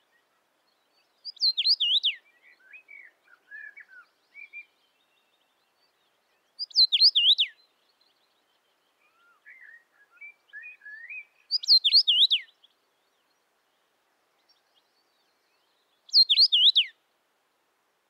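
Common rosefinch (Carpodacus erythrinus) singing its short, slurred whistled phrase, the song rendered in Russian as "Витю видел?". The phrase comes four times, about every five seconds, with softer twittering in the gaps between phrases.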